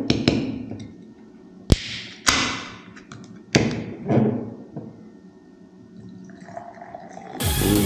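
A glass set down on a table, then an aluminium beer can cracked open: sharp clicks of the ring-pull, each followed by a short hiss of escaping gas. About six seconds in, beer pours into the glass with a steady fizzing hiss, and loud electronic music comes in near the end.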